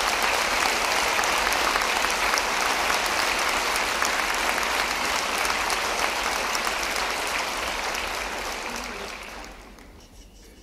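Audience applauding steadily. The applause dies away over the last couple of seconds.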